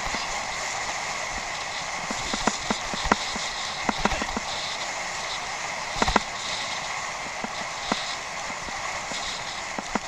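Bicycle being ridden over rough off-road ground: a steady rushing hiss with irregular sharp clicks and knocks as the bike jolts and rattles, thickest in the middle.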